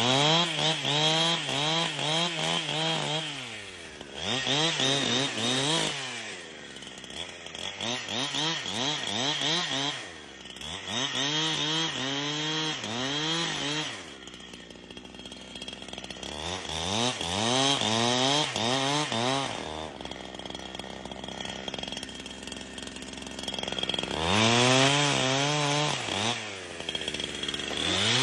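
Chainsaw cutting into a dead, rotten tree, the engine revving high under throttle and dropping back toward idle several times.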